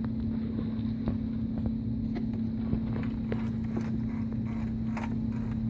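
Steady low electrical-type hum with scattered faint clicks and taps from the sewing machine's mechanism as its handwheel is turned by hand to draw the bobbin thread up.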